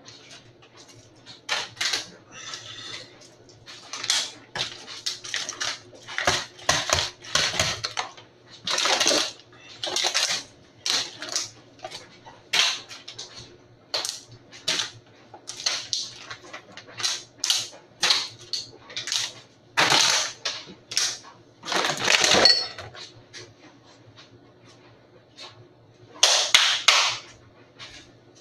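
A person beatboxing: a string of mouth clicks and pops with hissy, hi-hat-like strokes, some held for about half a second, in an uneven rhythm.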